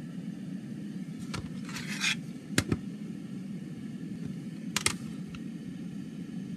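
Plastic CD jewel case being handled: a short scrape as it is picked up off the table about two seconds in, then two pairs of sharp plastic clicks as it is turned on edge and flipped over. A steady low hum runs underneath.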